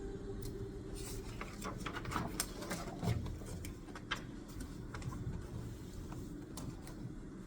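Desk-study work sounds: a run of light, irregular clicks and scratches between about one and four and a half seconds in, with a few more later, over a steady low hum.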